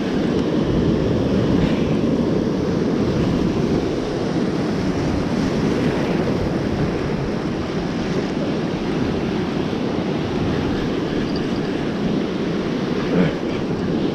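Ocean surf washing over rocks, with wind buffeting the microphone: a steady rushing noise. A brief knock near the end.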